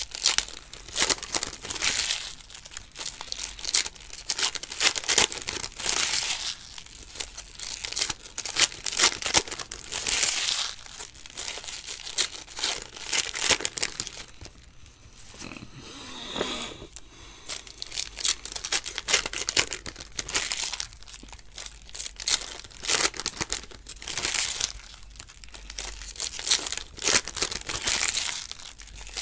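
Foil trading-card pack wrappers crinkling and tearing as packs are opened by hand: dense, irregular crackling with louder rips here and there.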